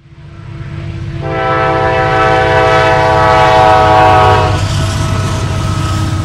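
An Amtrak diesel passenger locomotive draws near, its engine and wheels rumbling and growing steadily louder. About a second in, its air horn sounds a chord, held for about three and a half seconds, and then cuts off while the rumble goes on.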